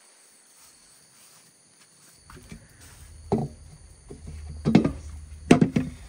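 Steady insect buzzing, then about two seconds in a low rumble sets in and three dull thumps follow, the last the loudest.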